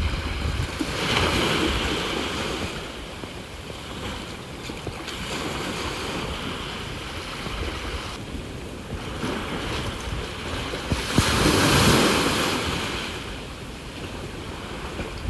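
Sea waves washing onto the shore: a steady wash with two louder surges, one about a second in and a bigger one that builds and fades around eleven to thirteen seconds in.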